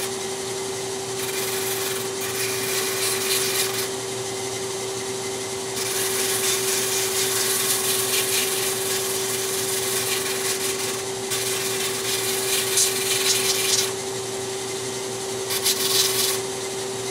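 Large sanding drum running with a steady motor hum while a wooden piece is pressed against the spinning abrasive sleeve to rough-shape it. The gritty sanding noise rises and falls several times as the wood is pressed on and eased off.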